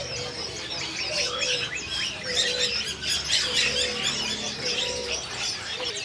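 Many caged songbirds chirping and twittering together in a dense chorus, with a low cooing of doves repeating about every second beneath it.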